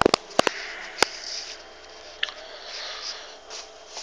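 Four sharp clicks close together in the first second, then a faint steady hiss with a short high squeak about two seconds in.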